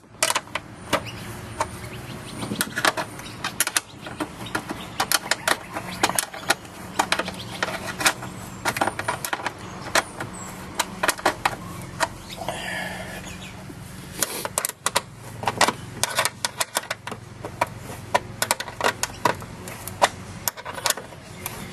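Irregular metallic clicking and clinking of hand-fitted car parts and nuts being handled and put on, many short knocks over a steady low hum.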